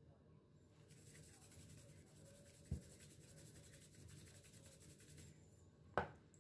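Salt sprinkled by hand over a bowl of salad: a faint, fine, grainy hiss of grains falling and rubbed between the fingers, lasting a few seconds. Two soft knocks, one about halfway and a slightly louder one near the end.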